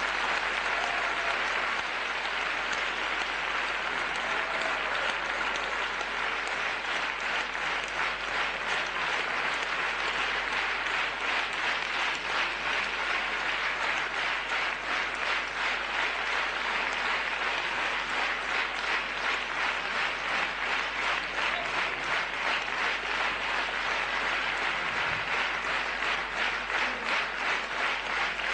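Large audience applauding; after several seconds the clapping falls into a steady rhythm, the crowd clapping in time.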